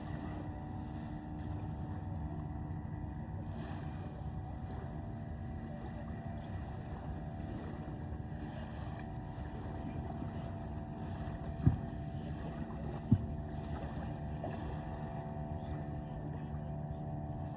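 Steady drone of a motorboat engine out on the water, with wind on the microphone. Two sharp knocks come about a second and a half apart, about two-thirds of the way through.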